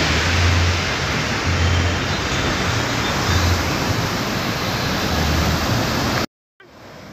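Strong wind buffeting a phone's microphone, irregular low rumbles over a steady rushing hiss of wind and surf. It cuts off suddenly about six seconds in and comes back as a quieter rush.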